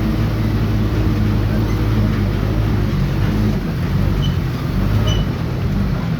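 Vehicle engine running steadily with a low hum, its pitch shifting about halfway through.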